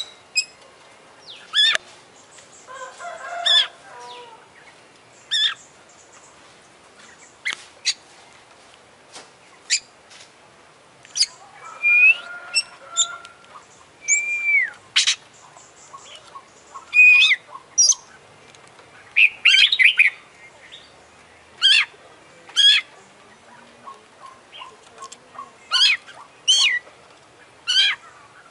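Oriental magpie-robin singing in short, separate phrases: clear whistles and sharp chips, some gliding up or down in pitch, with a couple of rougher, lower twittering passages among them.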